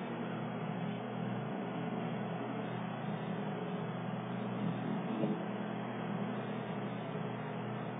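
Tour boat's engine running with a steady low drone, heard from on board.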